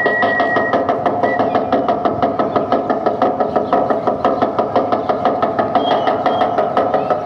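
A steady, fast drumbeat for a dance, about four beats a second.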